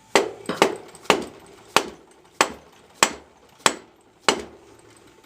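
Dead blow mallet striking the spindle shaft of a Wells Index vertical milling machine, about nine blows at a fairly even pace, each with a short metallic ring. The shaft is being knocked to drive it and see whether the spindle bushing or bearing will move out.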